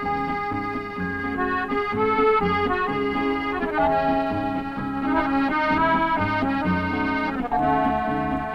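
Accordion music: a melody of held notes over an alternating bass-and-chord accompaniment.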